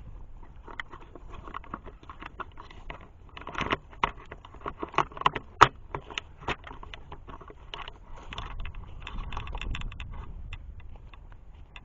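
Footsteps on a wooded trail through leaf litter and dead twigs: an irregular run of crackles and snaps, loudest from about four to six and a half seconds in.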